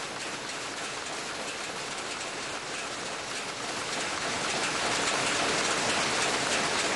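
Power looms running in a weaving workshop: a dense, steady mechanical clatter that grows louder about four seconds in.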